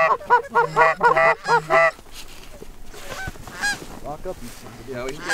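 Canada goose honks and clucks: a loud, rapid run of calls for about two seconds, then fainter, scattered honks.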